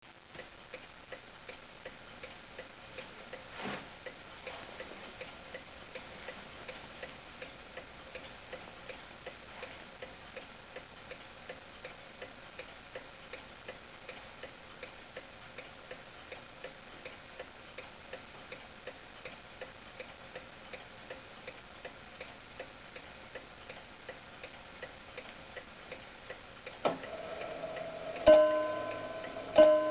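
Steeple clock movement ticking steadily, about two ticks a second. Near the end a click, then the clock starts striking the hour on its chime bar: two ringing strikes about a second and a half apart.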